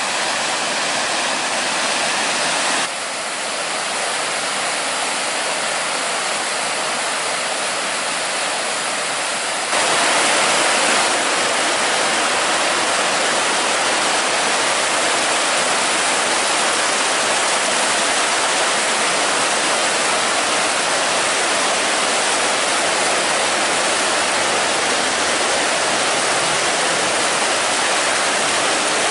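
River Moy in flood, rushing through the arches of a stone bridge and churning in whitewater: a steady, loud rush of fast water that grows louder about ten seconds in.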